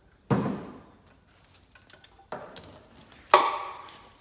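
Three sudden metallic clanks of engine parts or hand tools being handled and set down on metal, the first and last loud and the middle one softer.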